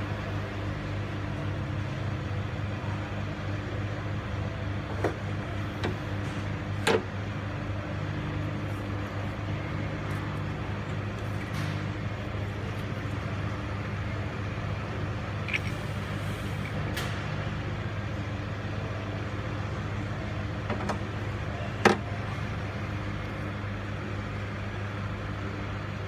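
A steady low hum with a few sharp metallic clicks and knocks from hand tools working at the open cylinder head of a diesel engine. One louder click comes about three quarters of the way through.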